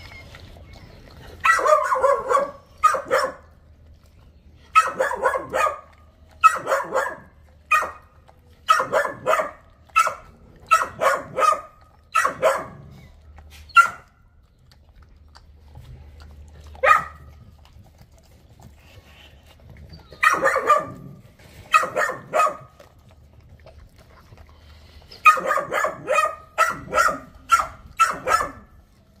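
A dog barking in short runs of two to four barks, with pauses of a few seconds between runs and a longer gap around the middle.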